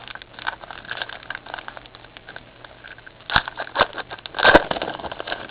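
Crinkling and tearing of a trading-card pack's foil wrapper as it is opened: a run of small crackles, with two louder bursts of crinkling past the middle.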